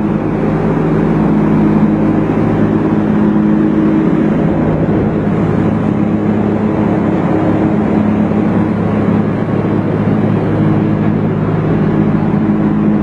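15 kVA gas generator's Toyota 3S 2.0-litre four-cylinder engine running at a steady speed, with an even hum.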